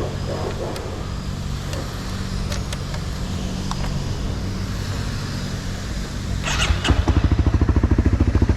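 Steady low engine hum, then about six and a half seconds in a short burst as a Honda CBR250R's single-cylinder engine starts and settles into a loud, fast, even idle pulse.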